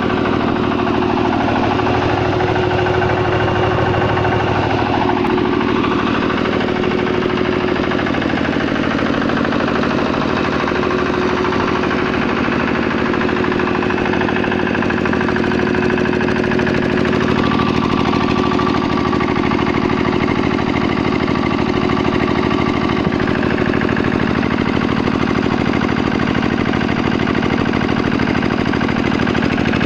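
12 HP water-cooled diesel engine of a 7.5 kVA generator set running steadily at constant speed, with a fast even beat under a steady hum.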